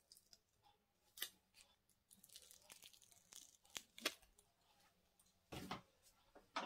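Protective backing being peeled off an adhesive mounting strip, heard as a few faint, short crackles and tearing sounds. The longest comes about five and a half seconds in.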